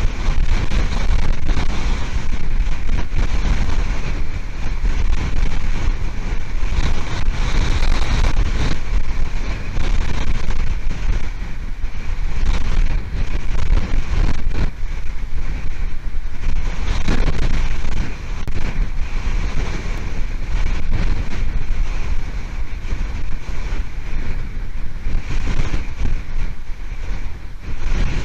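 Hurricane wind buffeting the nest camera's microphone: a loud, deep rushing noise that swells and dips in gusts.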